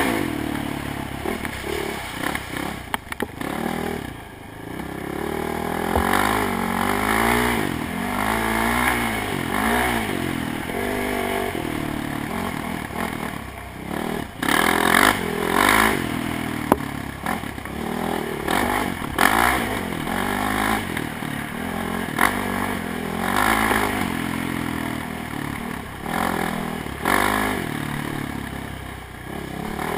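ATV engine revving up and down again and again as the throttle is worked on a trail ride, with the machine clattering and rattling over the rough ground.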